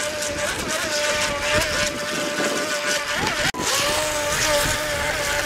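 Radio-controlled speedboat running at speed, its motor holding a steady high whine over a hiss. The sound breaks off for an instant about three and a half seconds in, then resumes at the same pitch.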